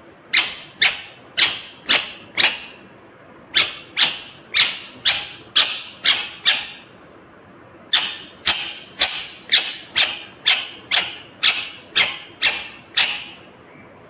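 Indian ringneck parakeet giving a series of sharp, harsh calls, about two a second, in three runs with short pauses between them.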